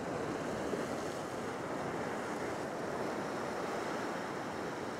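Steady wash of small ocean waves breaking and washing over a rock shelf.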